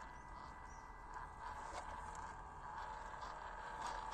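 Steady whine from a 1/16-scale WPL RC crawler's small electric motor and two-speed gearbox as it crawls slowly, growing louder toward the end, with faint crunches of the tyres over gravel and rock.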